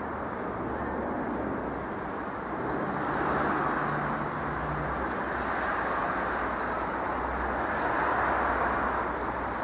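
Steady outdoor background noise of distant road traffic, swelling slightly a couple of times.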